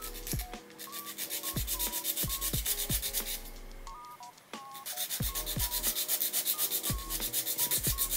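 A nail file rasping quickly back and forth across the edge of a clear resin keycap, about five strokes a second, smoothing the edge left after trimming with nippers. The filing pauses for about a second midway.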